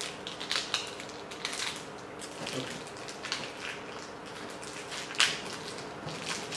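Thin clear plastic wrapping crinkling and crackling in irregular bursts as it is pulled open by hand, with a sharper crackle about five seconds in.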